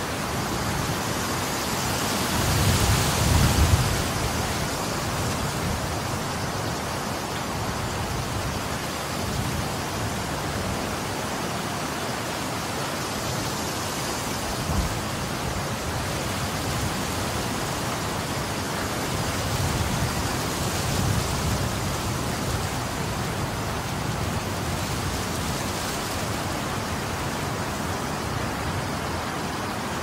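Strong wind blowing with a steady rush, gusting and buffeting the microphone with low rumbles twice, about three seconds in and again around twenty seconds.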